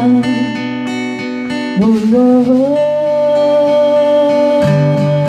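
Music: acoustic guitar accompaniment under a sustained melody line that slides up in pitch about two seconds in.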